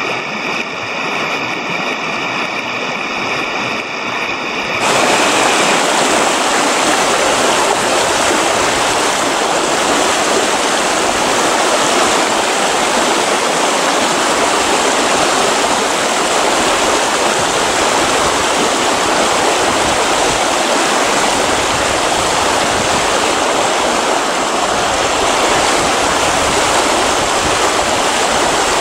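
Rushing water of a shallow, fast-flowing rocky river, a steady hiss that jumps louder and fuller about five seconds in.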